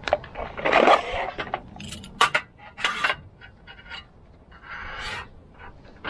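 Small items handled on a metal camp table: a plastic bag crinkles briefly, then come sharp clicks and knocks as things are picked up and set down.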